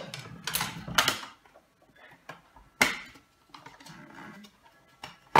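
Plastic and glass casing of a Fitbit Aria bathroom scale clicking and knocking as its halves are handled and pulled apart, with a cluster of clicks about a second in, another near three seconds and a sharp knock at the end.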